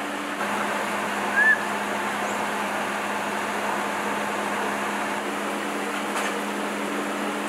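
Steady hissing outdoor ambience with a faint low hum under it, and one short high chirp about a second and a half in.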